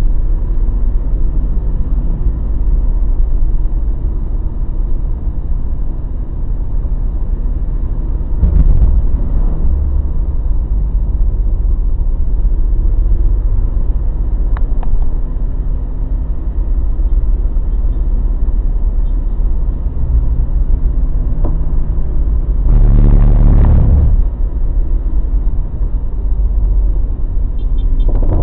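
Mazda BT-50 pickup driving: a steady low engine and road rumble whose engine note drifts up and down. Louder noise comes twice, about a third of the way in and for a second or so near the end.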